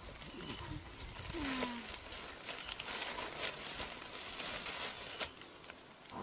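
Leaves and dry undergrowth rustling and crackling as a person shifts and gets up from a bed of leafy branches. There is a brief low falling sound about a second and a half in.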